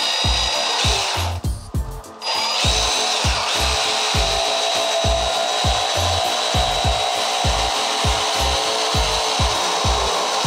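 A DeWalt FlexVolt cordless jigsaw cutting through a foam shower pan board with a steady high whine. The cut stops for about a second near the start, then runs on without a break. Background music with a regular beat plays underneath.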